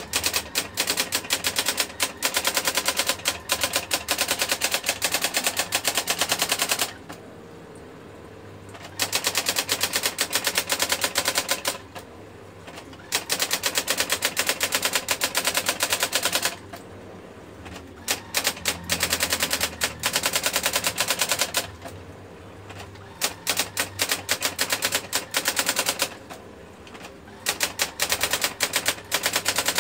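Brother GX-6750 electronic daisy-wheel typewriter printing: fast, even runs of sharp strike clicks lasting several seconds each. The runs stop five times for a second or two, and the machine's low motor hum continues through each stop.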